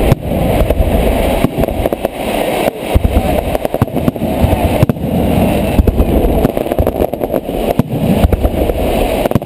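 Fireworks display: a rapid, irregular string of aerial shell bursts, several bangs a second, over a continuous low rumble.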